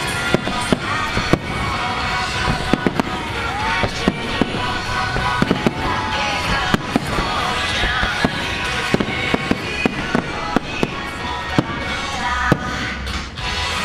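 Fireworks shells bursting in quick, irregular succession, many sharp bangs one after another, over music played along with the show.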